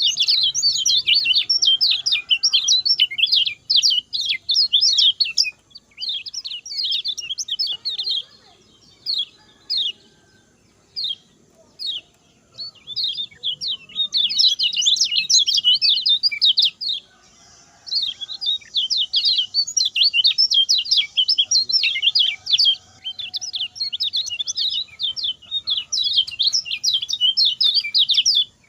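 Kecial kuning songbird singing a fast, chattering song of rapid high notes in long continuous runs, breaking into short separate phrases for a few seconds partway through.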